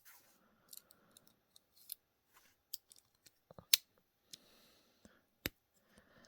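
Scattered light clicks and taps from a Swiss Army-style pocketknife being handled, with two sharp snaps, the louder one about three and a half seconds in and another about five and a half seconds in.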